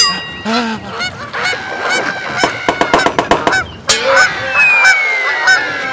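Cartoon sound effects of a flock of birds honking like geese in quick repeated calls, then a sharp whoosh about four seconds in and a long, slowly falling whistle near the end, the stock sound of something dropping through the air.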